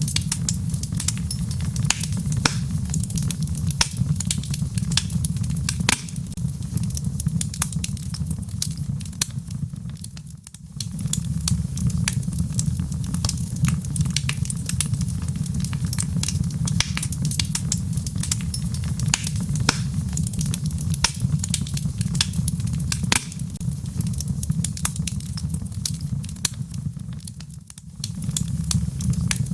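Wood logs burning in a fireplace: frequent sharp crackles and pops over a steady low rumble of flame. The sound briefly dips twice, about ten seconds in and near the end.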